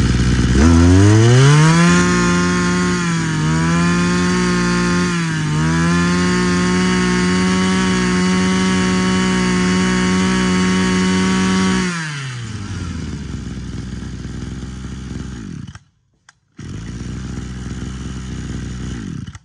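Mitsubishi TL26 26cc two-stroke brush cutter engine revving up to high speed about half a second in and held there with two brief dips in speed. About twelve seconds in it drops back to a steady idle, cuts out briefly near sixteen seconds, then idles again.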